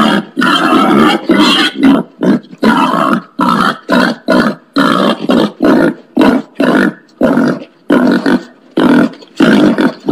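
Wild pig grunting over and over in short, harsh grunts, about two a second.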